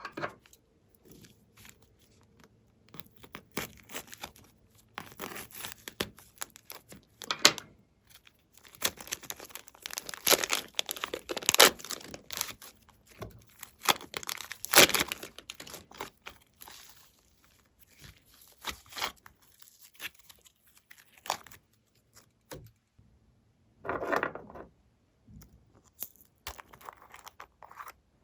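Glossy slime being worked by hand, with irregular sticky crackles, clicks and tearing sounds as it is stretched and pressed, busiest in the middle.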